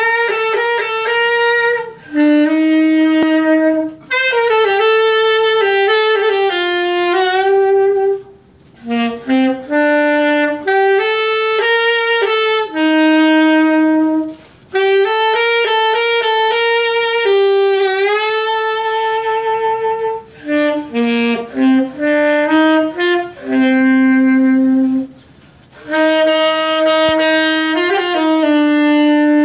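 Solo saxophone playing a melody unaccompanied, mostly long held notes, with short breaks between phrases.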